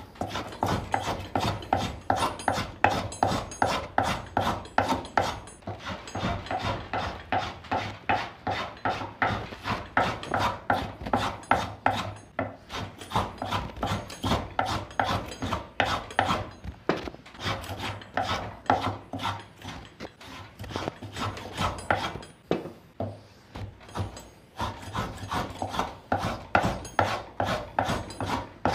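Hand plane shaving the corner of a wooden table leg to a chamfer in quick, short, repeated strokes, each a brief rasping scrape, with a couple of short pauses.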